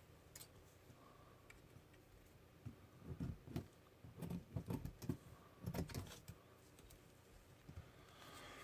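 Faint handling sounds of reinforcing gauze being pressed and brushed into a latex mold: a run of soft taps and light clicks in the middle, quiet before and after.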